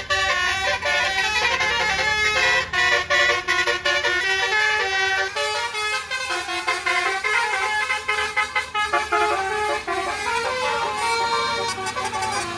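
Indonesian bus 'telolet' horn, a multi-tone musical air horn, playing a melody of quick stepped notes with a few brief pauses.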